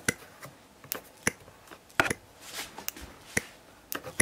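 Ignition spark snapping across the gap of a small spark plug held out of the cylinder head of a c.1950 Frog 500 spark-ignition model aero engine, as the engine is turned over by hand. It makes a run of sharp, irregular clicks, about two or three a second: a strong, healthy spark from the coil and contact-breaker ignition.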